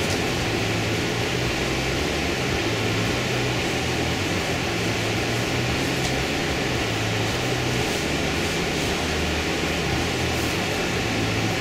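Steady low hum with an even hiss: constant machine-like background noise, unchanging throughout. No pen strokes stand out.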